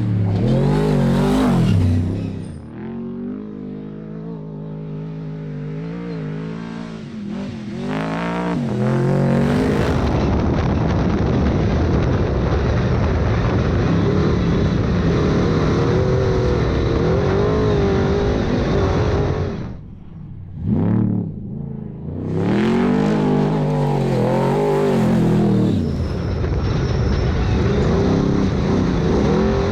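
Off-road desert race truck engine revving and running hard, pitch rising and falling with the throttle, in several separate takes. The level briefly dips about twenty seconds in, then the engine revs back up.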